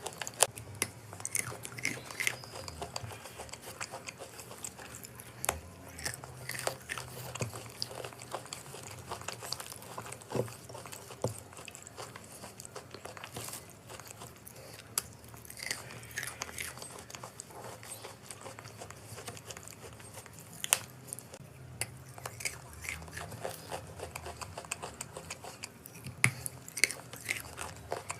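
A person biting and chewing crunchy chalk, with irregular sharp crunches coming several times a second.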